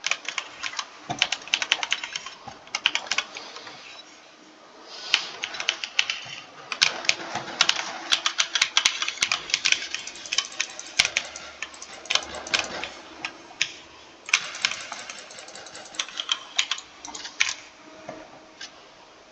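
Typing on a computer keyboard: runs of rapid key clicks broken by short pauses.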